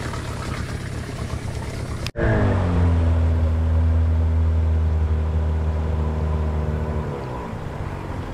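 A canoe's outboard motor running. After a brief break about two seconds in, its note comes back louder, drops in pitch, holds steady, then settles lower near the end.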